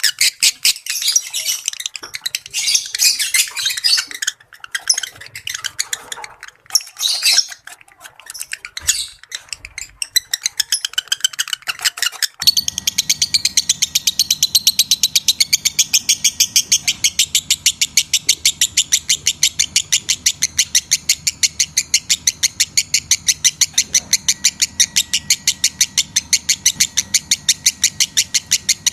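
Lovebirds calling with shrill, irregular chirps; about twelve seconds in it cuts abruptly to a fast, even chatter of short high calls, several a second, that runs on steadily.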